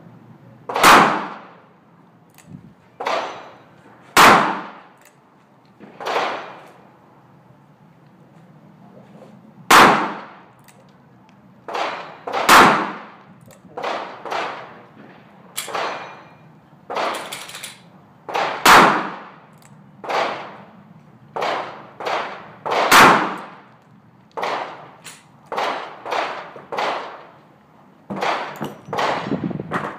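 Smith & Wesson Model 629 Stealth Hunter revolver firing .44 Magnum rounds: six very loud shots, spaced a few seconds apart. Fainter gunshots from other guns come in between them.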